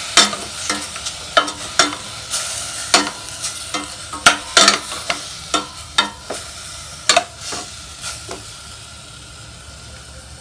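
Soy-and-garlic-marinated pork sizzling as it browns in a stainless steel pot, with a utensil stirring it in irregular scraping clicks against the pot, about two to three a second. The stirring stops about eight seconds in and the sizzle goes on.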